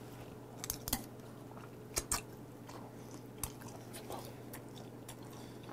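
A person chewing a mouthful of pork-bone stew meat close to the microphone, with a few short wet mouth clicks about a second in, twice around two seconds in, and once more past the three-second mark.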